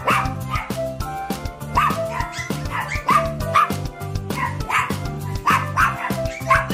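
Small toy poodles yipping and whining with short, high calls over and over, under background music with a steady beat.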